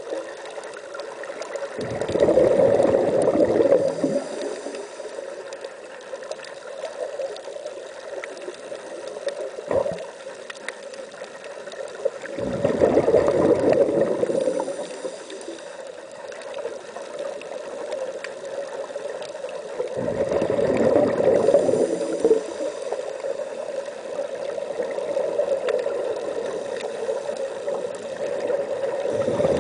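Scuba regulator exhalations recorded underwater: bursts of exhaled air bubbling out about every eight seconds, three times and again near the end, over a steady underwater hiss.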